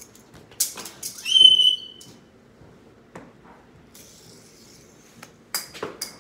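A short, high-pitched whistle-like squeal lasting about half a second, the loudest thing here, about a second and a half in. It comes just after a few sharp rustling strokes. Near the end there are a few short clicks and knocks as a fidget spinner is tossed and caught.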